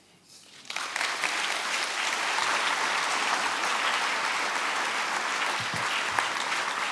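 Audience applauding. The clapping swells in just under a second in, then holds steady.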